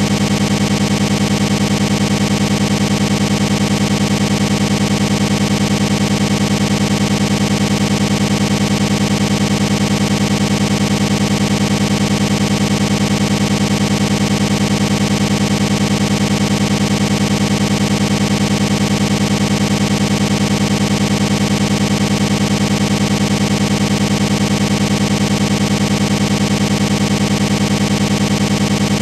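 Steady engine drone with a strong low hum, unchanging in pitch and level throughout, with no revving or passing bikes heard.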